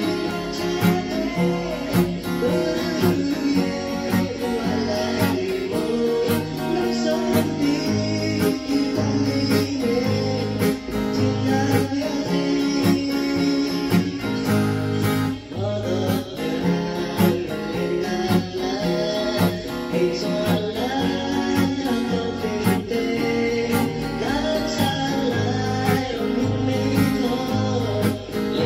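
Acoustic guitar strummed in a steady rhythm through a simple major-key chord progression (C, C7, F, Dm, then G and C), with a voice singing the melody over it.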